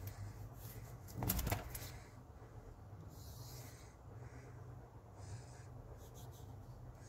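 A shrink-wrapped cardboard power bank box being handled and turned over in the hands. There is a short burst of rustling and clicks just after a second in, then a few faint crinkles, over a steady low hum.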